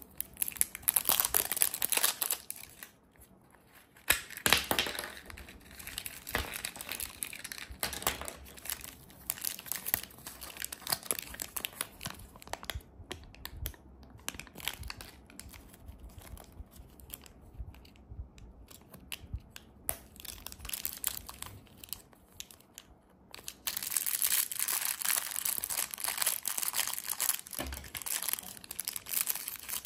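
Close handling of a plastic toy ball and its packaging: clicks and crackles of plastic pieces being pried apart and a paper leaflet rustling. From about 23 seconds in, a plastic candy packet crinkles steadily.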